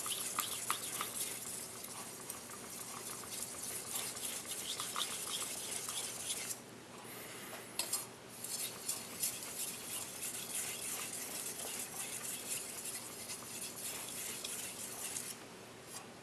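Kitchen knife blade, a double-bevel gyuto, being stroked back and forth on a whetstone: a continuous gritty scraping that pauses briefly twice, once about six and a half seconds in and again near the end.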